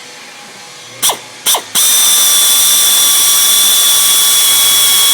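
Electric drill drilling out an aluminum pop rivet: two short blips of the trigger, each winding down, then a steady high-pitched run at constant speed.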